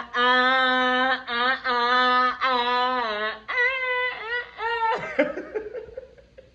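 A voice singing long, wavering held notes, then shorter phrases that trail off about five seconds in.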